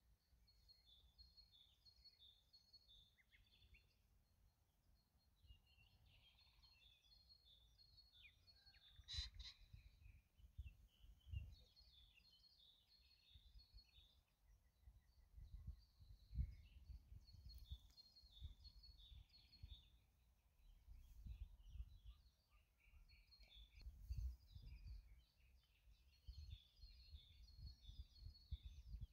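Faint dawn birdsong in a meadow: small songbirds repeating high, twittering song phrases, with irregular low gusts of wind rumbling on the microphone.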